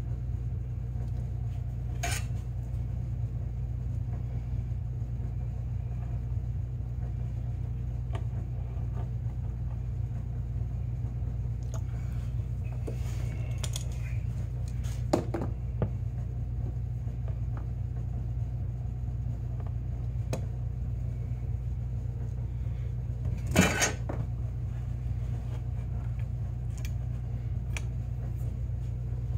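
Scattered metallic clinks and clicks from a bolt and small hand tools being handled among the snowmobile's engine parts, a few at a time, the loudest about three-quarters of the way through, over a steady low hum.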